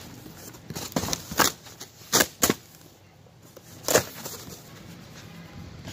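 A large corrugated cardboard box being opened by hand: flaps pulled back and folded down, about five sharp rustles and knocks spread over the first four seconds.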